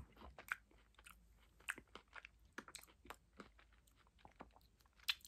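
A man chewing a bite of an Almond Joy coconut-and-almond chocolate bar, heard close up as faint, irregular mouth clicks and smacks, with a slightly louder smack near the end.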